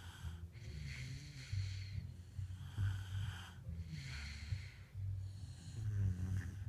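Snoring from two sleepers, at least one of them a dog: a low rumble with raspy, wheezy breaths swelling and fading about every second and a half.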